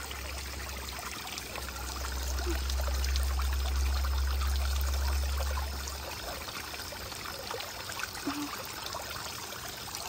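Small LED pond fountain spraying jets of water that fall back onto the pond surface in a steady splashing patter. A low rumble sits under it until about six seconds in.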